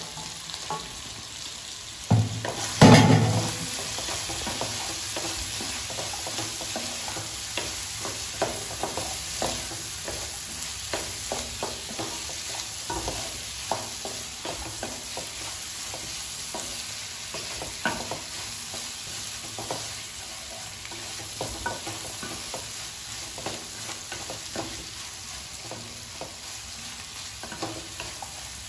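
Chicken pieces and freshly added chopped green chillies sizzling in oil in a nonstick pan, stirred with a wooden spatula that scrapes and knocks against the pan at irregular intervals. A loud clatter about two to three seconds in.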